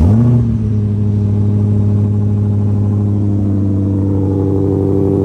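Supercharged 5.2-litre V8 of a Ford Raptor R firing up, flaring briefly and then settling into a steady fast idle.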